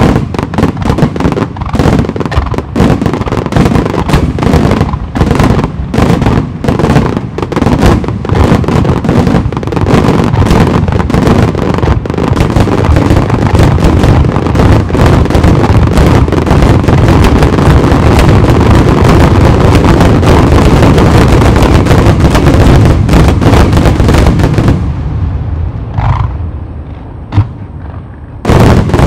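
Star mine barrage of aerial firework shells: rapid, overlapping bursts and booms that thicken into a continuous wall of explosions, then stop abruptly about 25 seconds in. Loud bursts start again near the end.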